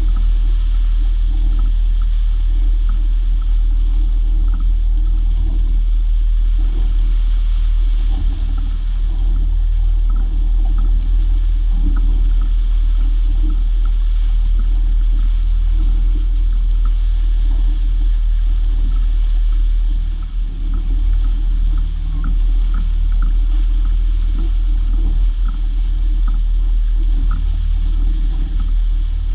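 A boat under way: a 225-horsepower outboard motor running steadily, heard as a heavy low drone under the hiss of churning wake water.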